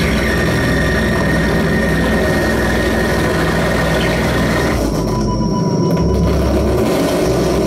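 Live noise music from keyboard synthesizer, electronics and electric guitar: a loud, dense wall of distorted sound with a high held tone that stops about five seconds in.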